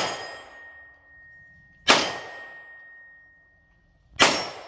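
Side-charging AR9 9mm carbine firing: the tail of a shot at the start, then two more shots about two seconds apart. A high ringing tone hangs on for over a second after the shots.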